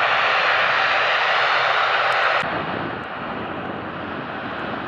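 Rolls-Royce Trent 700 turbofans of an Airbus A330-243 running at taxi power as the airliner swings onto the runway, a steady jet hiss and rumble. About halfway through, the sound drops abruptly in level and loses its top end, turning duller.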